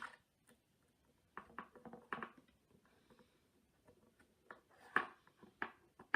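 Light, scattered clicks and taps of small screws and a screwdriver or tweezers being handled against the iPad 2's frame during reassembly.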